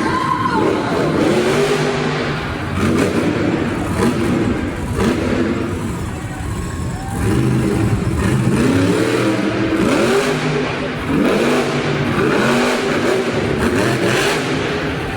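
Monster trucks' supercharged V8 engines revving hard over and over, the pitch climbing and dropping back again and again.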